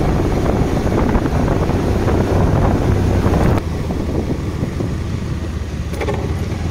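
Wind rushing over the microphone of a moving motorcycle, with the engine running underneath. The wind noise drops suddenly about halfway through, leaving a quieter, steadier engine sound.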